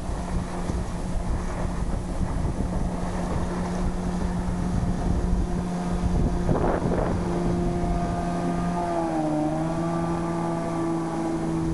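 Outboard motor on a small Nautica Rio 310 boat running steadily at speed, a steady engine note whose pitch drops a little about nine seconds in as the boat passes. Wind buffets the microphone throughout.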